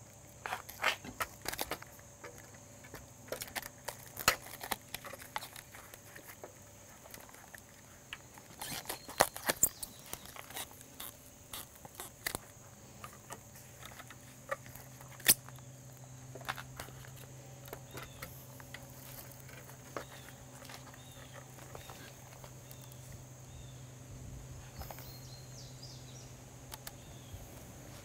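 Quiet outdoor ambience with scattered light clicks and dry crackling rustles. These are densest in the first half, with the sharpest ones about nine and fifteen seconds in, over a faint steady hum. A few faint short chirps come in the second half.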